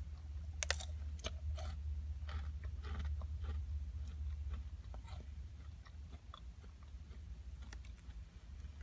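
Bites into a crispy chocolate-covered wafer roll and chews it close to the microphone, giving short sharp crunches and crackles. The crunches thin out after about five seconds, over a steady low hum.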